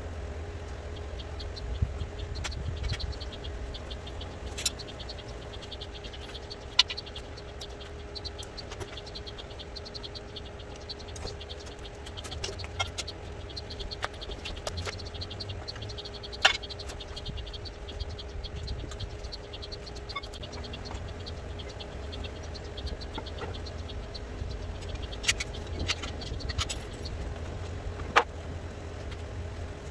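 A handful of sharp metallic clanks and knocks, scattered through, from an engine hanging on an engine hoist being guided and lowered into a car's engine bay, over a steady low hum.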